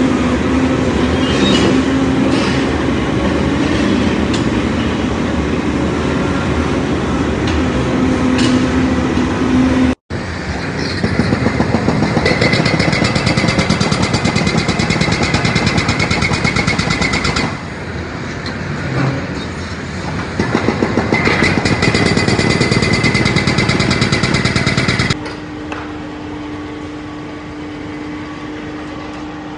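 Tracked excavators working on a tram track bed: first a diesel engine running under load with a steady hum, then, after an abrupt cut, a hydraulic breaker hammer on an excavator arm pounding the ground with fast, even blows, stopping for a few seconds in the middle. Near the end, after another cut, a heavy excavator's diesel engine runs quieter and steadily.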